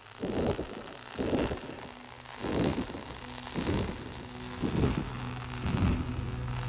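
Ambient soundtrack music: a soft low pulse a little more than once a second, with sustained drone tones coming in under it and growing fuller toward the end.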